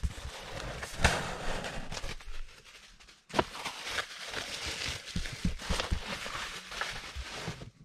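Plastic bubble wrap rustling and crinkling as it is pulled out of a cardboard box, with a couple of knocks, one about a second in and one just after a brief pause near three seconds.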